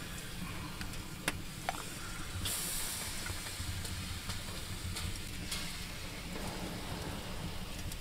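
Steady hiss and light sizzle from the open smoker as glazed salmon fillets are basted on the wire racks, with a couple of light clicks about a second in and a brief louder hiss a little later.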